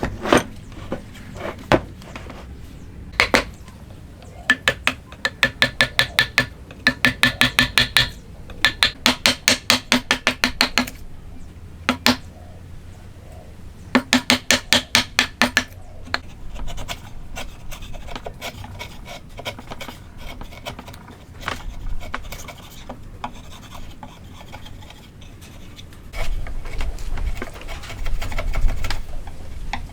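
Hand woodworking: runs of quick, ringing hammer taps, about five a second, then a hand tool scraping and rasping on wood through the second half.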